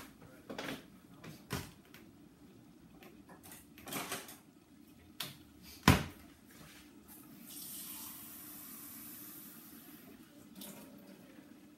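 Kitchen sink tap running for about three seconds in the second half, filling a glass measuring cup with water. Before it come several knocks and clatters, the loudest a sharp knock about six seconds in.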